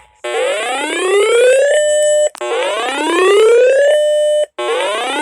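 Electronic siren-style alert tone: a whoop that rises in pitch, holds briefly on a steady note and cuts off sharply, repeating about every two seconds. It serves as an attention signal opening an emergency alert broadcast.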